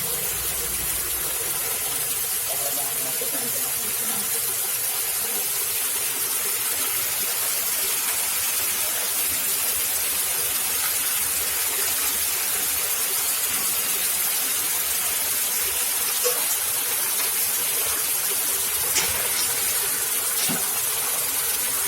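Candlenut-cracking machine with its attached sieve running: a steady rushing noise, with a couple of faint sharp clicks in the second half.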